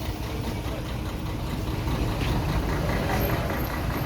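A motor vehicle's engine running steadily, a low rumble with no sharp knocks or bangs.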